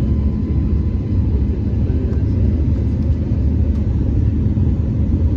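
Airbus A321neo during takeoff, its engines and airflow making a steady low rumble.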